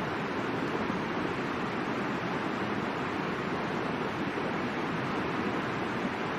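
Steady rushing of a river's flowing water, an even, unbroken noise.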